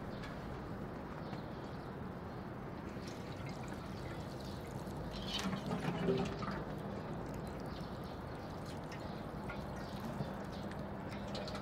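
Water pouring from a metal watering can onto potted plants, loudest for a second or so about halfway through, over a faint steady background hum.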